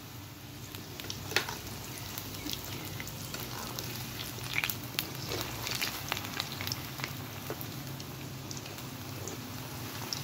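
Gram-flour pakoras deep-frying in hot oil in a karahi: a steady sizzle with many sharp crackles and pops as they are turned with a metal slotted spoon.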